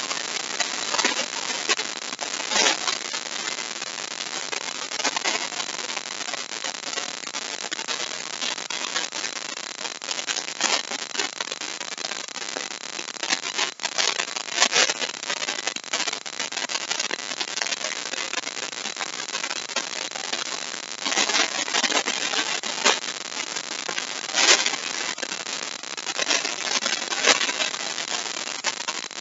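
Electric router cutting a deep mortise into wood: a steady harsh noise, with louder surges every few seconds as the bit is worked into the cut.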